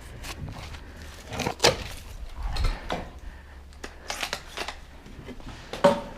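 Irregular clicks and knocks with some rustling between them, the sharpest about a second and a half in and again near the end.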